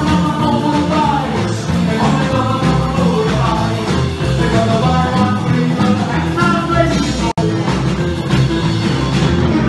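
Live rock and roll band playing: a man singing over electric guitar, electric bass and drums, with a steady beat. The sound cuts out for an instant about seven seconds in.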